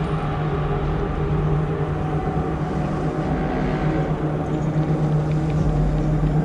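Dark ambient industrial music: a dense, steady low drone with a strong hum and layered held tones over a rumbling noise.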